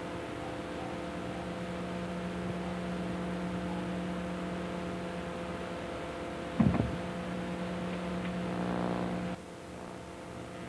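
Steady electrical hum with hiss on an old videotape sound track, with one short knock about two-thirds of the way through; the hum drops off abruptly near the end.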